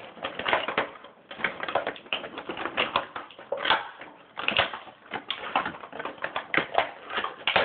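Plastic toy packaging crackling and clicking as a remote controller is worked out of its box, with fast, irregular clicks and rustles.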